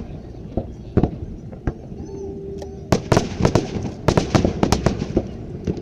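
Aerial fireworks going off: an irregular series of sharp bangs and crackling pops, coming thickest in clusters about halfway through and again toward the end.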